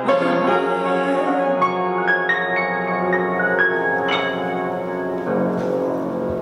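Grand piano played solo, closing out a slow R&B ballad: sustained chords with a few high notes stepping upward, then a final chord struck about five seconds in that is left to ring.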